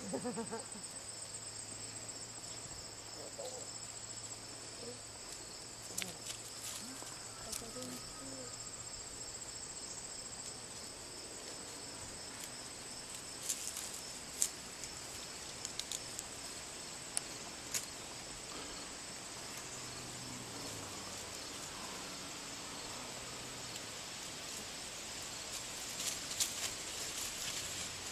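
A steady, high-pitched chorus of insects chirring, with a few short sharp clicks scattered through it.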